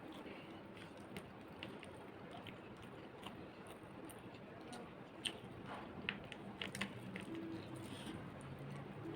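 A person chewing and eating rice with mutton curry up close, with wet, squishy mouth sounds and scattered small clicks, which come more often after about five seconds in.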